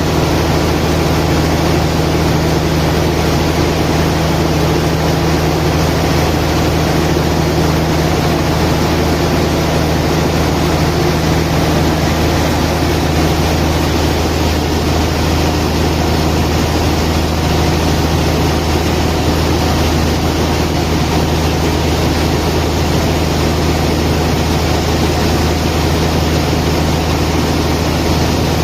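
Heavy machinery running steadily: a constant low engine-like drone that does not change.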